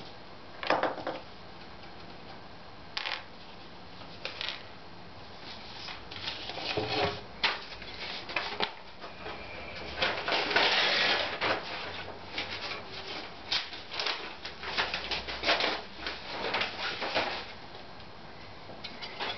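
Irregular clicks, knocks and rustling from someone handling and rummaging through objects, with a longer rustle about ten seconds in and a run of quick clicks in the second half.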